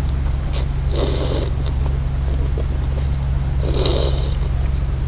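Close-miked eating noises: two noisy mouth sounds, about a second in and near four seconds in, over a steady low electrical hum.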